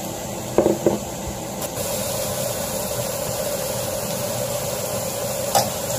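A steady mechanical hum with a faint hiss, like a kitchen fan running. There are a couple of light clicks about a second in and near the end.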